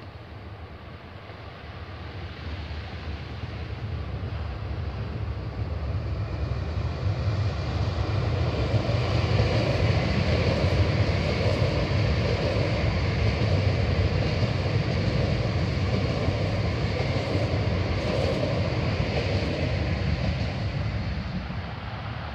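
Electric commuter train running past on the track, a rumble of wheels and running gear that builds as it approaches. It is loudest as the train goes by, about ten seconds in, then eases off as it moves away.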